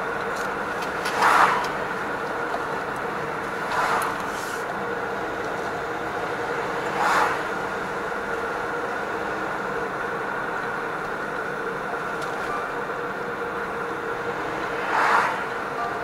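Road vehicle driving, heard from inside the cabin: a steady mix of engine and tyre noise with a constant hum, broken by four brief louder surges.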